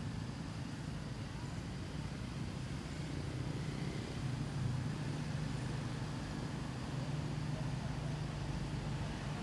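Steady low hum of an engine running, a little stronger from about four seconds in until near the end.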